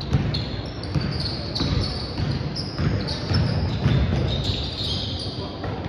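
Basketball bouncing repeatedly on the court, roughly two bounces a second, with sneakers squeaking in short high chirps and faint voices behind.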